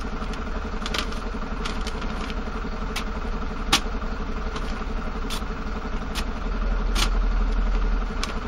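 Construction-site machinery running steadily with a low engine drone, which swells for about a second and a half near the end. Sharp short clicks and knocks come over it every second or so, the loudest a little before halfway.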